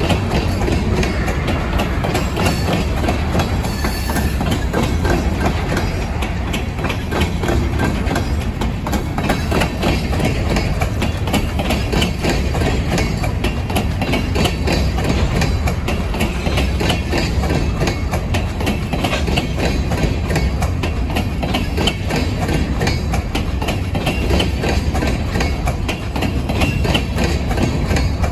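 Freight train of open-top hopper cars rolling steadily past close by: continuous wheel-on-rail rumble with rapid clicks of wheels passing over rail joints.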